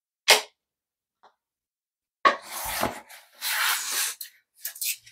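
Plastic static-cling window film being handled on a tile floor: a short sharp crackle, then about two seconds of the sheet rustling and sliding as it is pulled and repositioned, and a few short crinkles near the end.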